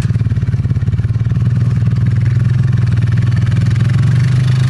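Small engine of a farm vehicle running steadily at an even, low speed.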